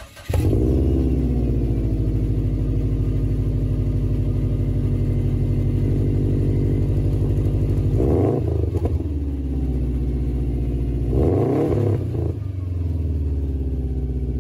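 Subaru WRX's turbocharged 2.5-litre flat-four firing up on a cold start, heard at the tailpipes through its Cobb exhaust with resonator and muffler axle-backs. It catches right away, settles into a steady idle and is blipped twice, about eight and eleven seconds in.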